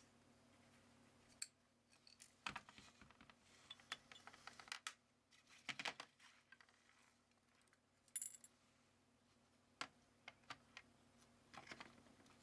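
Faint, scattered clicks and light metallic clinks of small parts and tools being handled and set down during hand work on a scooter carburettor, with a brief brighter jingle about eight seconds in.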